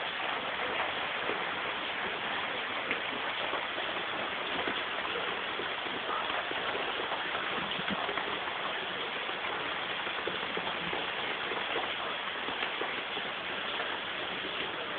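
Steady rain falling on concrete steps and ledges: an even hiss made up of many small drop impacts, with no let-up.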